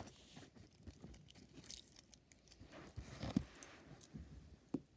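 Slime with confetti mixed in, squeezed and kneaded by hand: soft, irregular squishing with small crackles and clicks, and one sharper click near the end.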